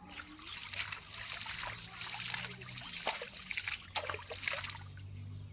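Water splashing and trickling as a cast net is hauled in by hand through shallow river water, with many small irregular splashes that ease off near the end. A steady low hum runs underneath.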